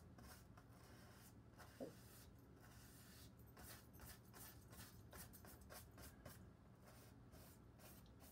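Faint swishing of a paintbrush stroking oil paint onto a stretched canvas, in quick repeated strokes, with a brief faint squeak about two seconds in.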